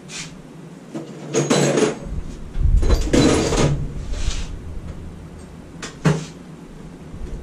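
Tools and parts clattering and knocking as they are handled during a search through a work area for a ratchet. The sound comes in a few separate bursts, the loudest about three seconds in with a low thump, and a sharp click about six seconds in.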